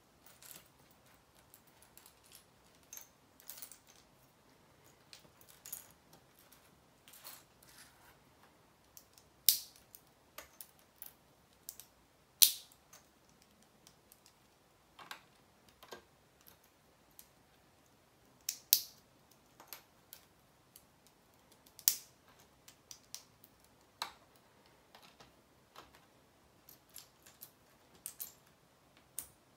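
Plastic Lego pieces being handled and pressed together: irregular sharp clicks and taps, with a few louder snaps.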